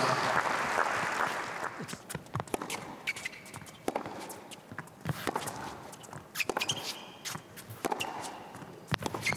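Applause dying away over the first couple of seconds. Then a tennis rally on a hard court: sharp knocks of racket on ball and ball on court, about one a second.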